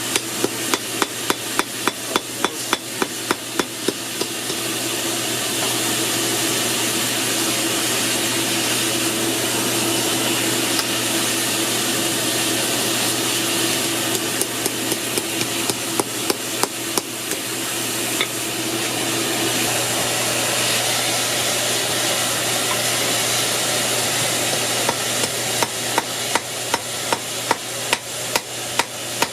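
Hand hammer striking hot 1/4 inch steel bar on an anvil, flattening it, in three bouts of quick blows at about three a second. Between the bouts a steady hiss and hum runs on.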